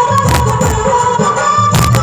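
Loud Indian film-style dance music with a held melody line and a heavy beat, and two sharp crash hits about a second and a half apart.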